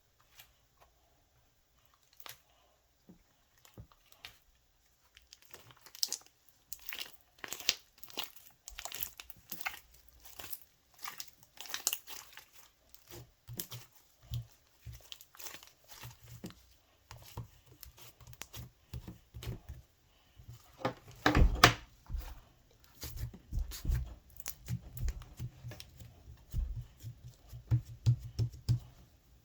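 Close-up crinkling and crackling of something being handled by hand: sparse clicks at first, then a busy run of sharp crackles and rustles from about six seconds in, with soft low thumps joining in the second half.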